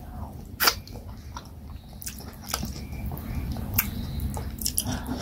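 Close-up eating sounds: wet chewing and lip smacks while a mouthful of oat fufu with vegetable soup is chewed. A few sharp wet smacks stand out, one under a second in and another near four seconds.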